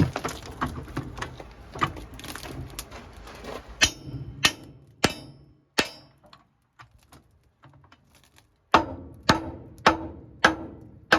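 Hammer blows ringing on a steel pintle plate to knock it into position on the frame: a group of four sharp strikes about 4 s in, then a run of five near the end, about 0.6 s apart, after a stretch of busy metal clatter.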